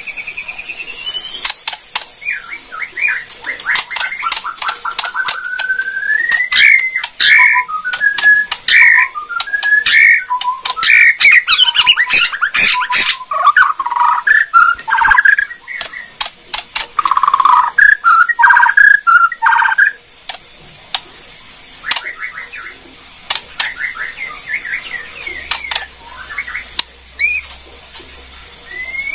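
White-rumped shama (Borneo murai batu) singing: whistled phrases that glide up and down, mixed with rapid dry clicking crackles (its 'kretekan'). The song is dense for about the first twenty seconds, then thins to scattered clicks and short notes.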